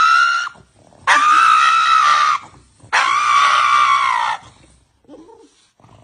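A pug howling: two long, high-pitched calls of about a second and a half each, steady in pitch and dropping off at the end. The tail of an earlier call rises and ends in the first half-second.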